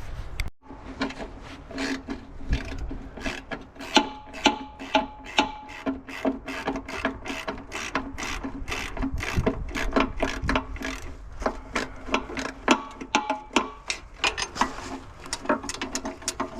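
Hand ratchet wrench clicking in quick, uneven runs as bolts are backed out to free the gas engine from the air compressor.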